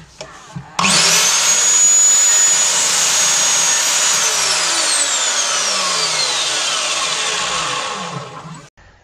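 Lumberjack SCMS210SB 210 mm sliding mitre saw's 1500 W motor starting with a high whine about a second in and running while the blade cuts through a pine board. It is then switched off, and the whine falls steadily in pitch as the blade spins down, dying away near the end.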